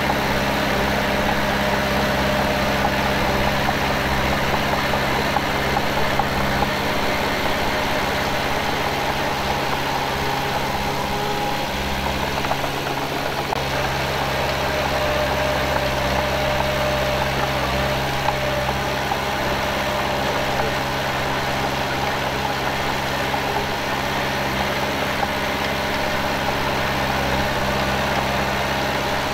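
Heavy earthmoving machine's diesel engine running steadily at an even level, its low rumble briefly changing about twelve seconds in.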